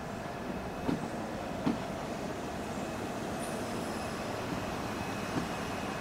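Southern Class 377 electric multiple unit at the station: a steady rumble with two short knocks about one and two seconds in.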